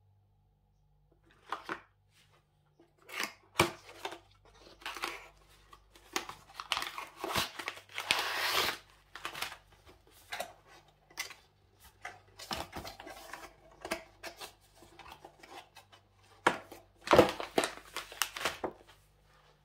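Packaging being handled and opened by hand: irregular rustling, crinkling and tearing of wrapping, in bursts with a few sharp clicks.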